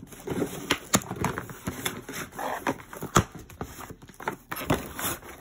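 A cardboard shipping box being worked open by hand: irregular taps, knocks and scraping of cardboard flaps and packing tape.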